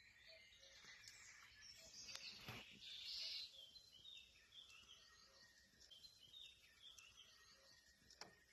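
Faint birdsong: several small birds chirping in short, repeated notes over a quiet outdoor hiss, with a couple of soft clicks.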